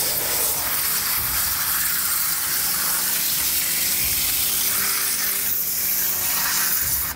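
Electric pressure washer jet blasting into cardboard and cutting through it: a loud, steady hiss of high-pressure water with a steady hum underneath, starting sharply and cutting off abruptly at the very end.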